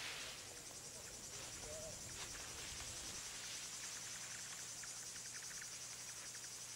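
Faint insects chirring in a steady, finely pulsing high drone, over a faint low hum.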